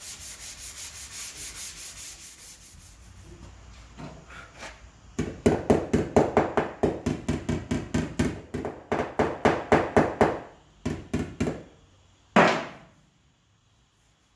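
180-grit sandpaper rubbed back and forth by hand over cured body filler on a car body panel, a run of rhythmic sanding strokes. The strokes are quicker and softer at first, then louder at about four a second from about five seconds in, ending with one last single stroke.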